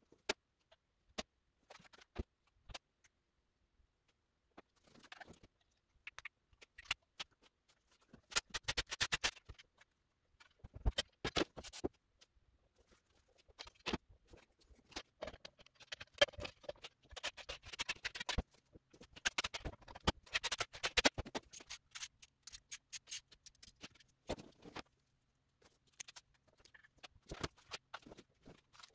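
Faint, irregular clicks, taps and scrapes of tools and parts being handled, in scattered bursts with quiet gaps between, growing busier about a third of the way in.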